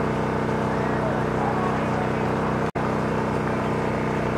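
A steady mechanical drone at an even, unchanging pitch. It cuts out for a split second a little under three seconds in.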